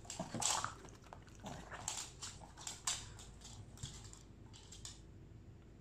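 Two excited Boston Terriers snuffling and huffing in a quick, irregular run of short breathy sounds that die away near the end.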